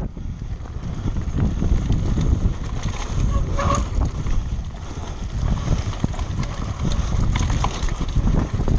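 Wind buffeting the microphone as a steady low rumble, with frequent small knocks and rattles throughout.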